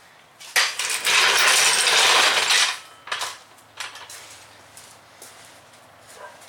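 Metal hand tools at work on a car engine: about two seconds of loud, dense metallic rattling and ratcheting starting half a second in, then scattered light clicks and knocks.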